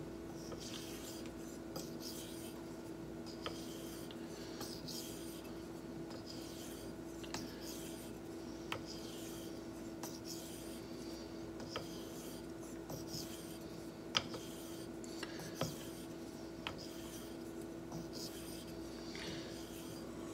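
A straight razor being honed on a wet 1K whetstone with slurry: soft, repeated swishing strokes of steel rubbing over the stone, with a light tick of the blade on the stone every couple of seconds. A steady low hum runs underneath.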